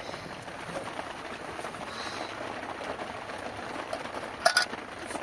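Steady hiss of heavy rain. About four and a half seconds in, two sharp knocks close together stand out above it.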